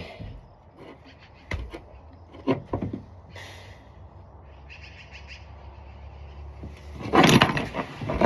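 Birds chirping, with a few sharp knocks in the first few seconds. A loud burst of rushing noise starts about seven seconds in and runs to the end.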